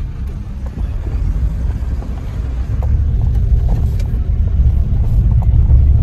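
Car driving over a rough dirt road, heard from inside the cabin: a low rumble that grows louder about a second in and again around three seconds in, with a few light knocks.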